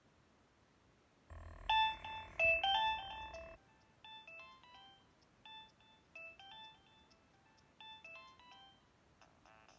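Nokia 2115 mobile phone playing a ringtone: a short electronic melody of beeping notes. It starts loud and buzzy about a second in, then carries on more quietly as quick notes jumping up and down. A different ringtone starts near the end.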